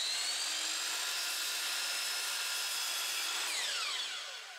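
Miter saw's motor spinning up to speed and running with a high whine as the blade cuts through a baseboard, then the trigger released and the blade winding down, its pitch falling, near the end.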